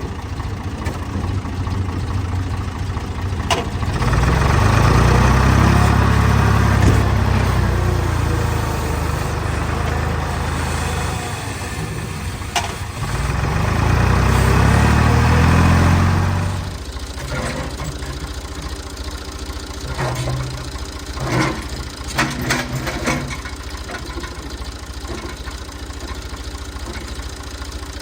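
Tractor engine running, revving up twice under load and then dropping back to a steady idle. Near the end come a few sharp clanks.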